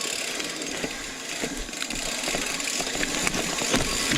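Mountain bike rolling along a rough dirt-and-rock trail, with steady tyre noise and many small knocks and rattles from the bike over the ground.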